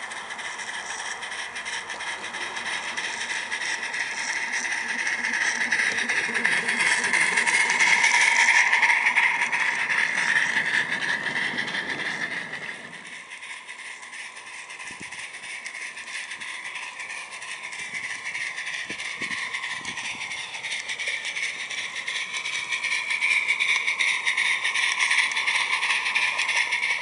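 16mm-scale live steam locomotive, a modified Locobox Sophie fitted with a Summerlands Chuffer, chuffing steadily as it hauls a train of small wagons, with the wheels clicking over the rail joints. It gets louder as it passes close, about eight seconds in and again near the end.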